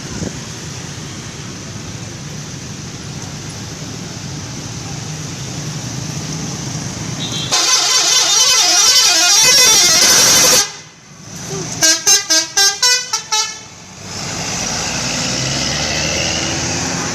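Bus 'telolet' musical air horn: a loud warbling multi-tone tune for about three seconds midway, then after a brief gap a quick string of about seven short toots, around four a second. Steady traffic and bus engine noise fills the start and end.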